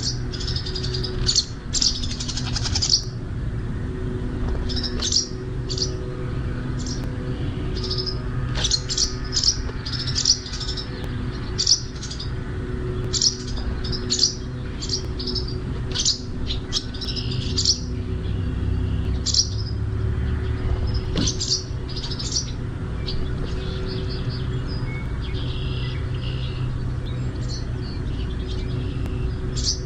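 Small birds chirping in quick, sharp bursts again and again, at an uneven pace: birds squabbling over a nest that a sparrow is trying to take over. A steady low hum runs underneath.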